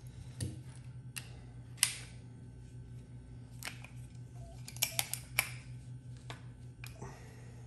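Brass pressure-washer unloader and an adjustable wrench clicking and clinking in the hands as a taped adapter fitting is tightened. There are about eight sharp metallic clicks at irregular intervals over a steady low hum.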